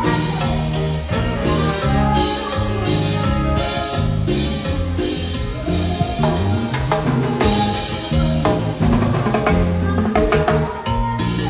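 Live cumbia band playing at a soundcheck rehearsal, with timbales and congas, keyboard, accordion and a strong bass line, and a woman singing at times.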